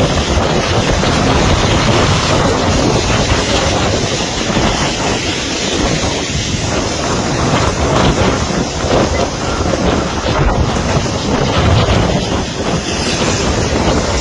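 Strong wind buffeting the microphone: a loud, unbroken rushing noise that gusts up and down without letting up.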